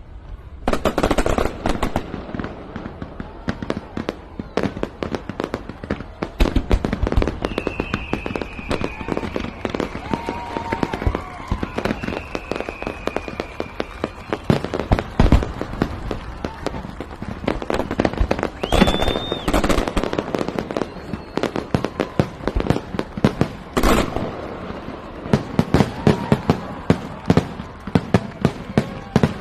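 Fireworks salute going off in rapid succession: a dense, continuous run of bangs and crackling reports, with a few high whistling tones in between.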